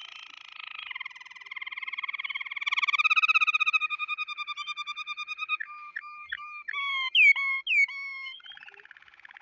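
Domestic canary singing: long, very fast whistled trills that shift to separate notes and a few quick downward-sweeping notes past the middle, then a buzzier trill near the end.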